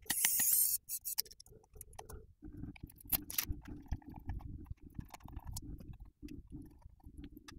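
Small screws being taken out of a handheld thermal camera's plastic case and set down, with scattered light clicks and knocks from handling the case and circuit board. There is a short whirring hiss in the first second.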